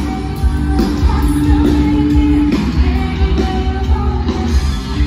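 Music: a song with singing over a steady bass line.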